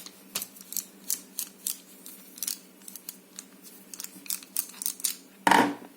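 Light, irregular metallic clicks and taps, about two or three a second, from a padlock and small lock tools being handled as the lock is prepared for disassembly.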